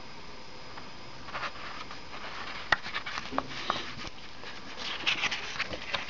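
Paper pages of a CD booklet rustling as they are handled and turned, with a few sharp clicks and taps, starting after a quiet first second.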